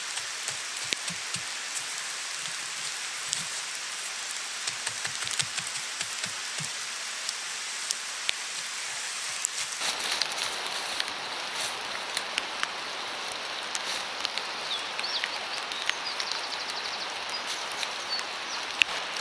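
Steady rain falling in woodland, a continuous hiss with many scattered sharp drip ticks on leaves and undergrowth.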